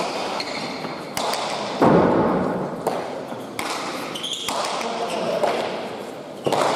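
A hand-pelota (main nue) rally: the ball smacks against the court walls and off the players' bare hands, each hit echoing through the hall. The loudest hit comes about two seconds in and another falls at the very end, with shoe squeaks on the floor between them.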